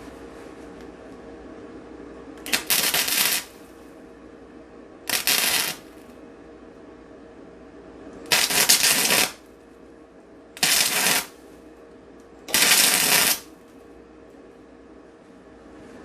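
Electric welder laying five short tack welds on a thin steel trunk-lid patch, each a crackling, sputtering arc of about half a second to a second, a couple of seconds apart.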